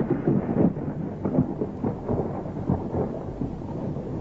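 Loud, continuous low rumbling with many short crackles through it, and no voice or clear tune.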